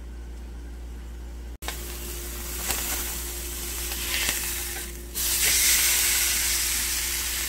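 Beef roast searing in olive oil in a cast-iron skillet, sizzling. A low hum comes first, the sizzle starts about a second and a half in, and it grows louder about five seconds in.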